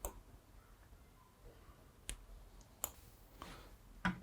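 Three faint, sharp clicks: one at the start, one about two seconds in and one just under three seconds in, over quiet room tone.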